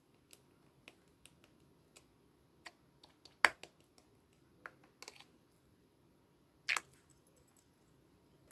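Scattered small clicks and taps, irregularly spaced, the loudest about three and a half seconds in and a quick double click near seven seconds.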